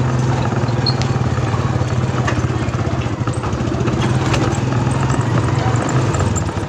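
Motorcycle engine of a tricycle running steadily while it is driven, heard from the sidecar, with a strong low drone that eases slightly near the end.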